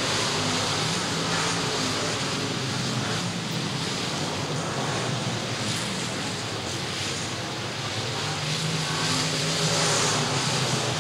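Field of dirt late model race cars with crate V8 engines running flat out around the track, a steady engine din that grows louder near the end as the pack comes by.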